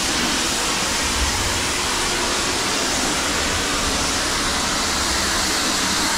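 High-pressure washer jet spraying water against the side panels of a motorhome: a steady, loud hiss of water.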